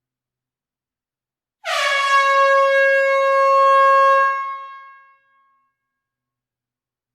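An air horn blown in a closed room: one blast of about two and a half seconds, starting about a second and a half in with a brief dip in pitch, then a steady high tone that fades out over about a second.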